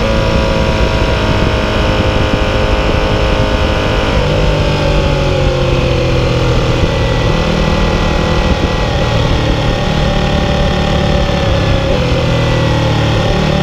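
Ducati 1299 Panigale's Superquadro V-twin heard from onboard while riding on track, its note falling steadily as the bike slows and shifts down from third to second gear, then picking up again near the end.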